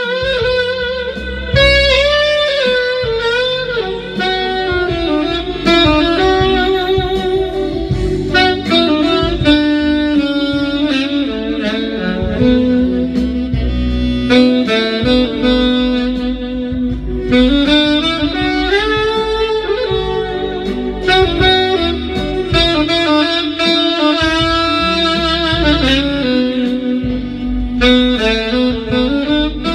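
Alto saxophone playing a melody with long held notes over a backing track with bass and drums.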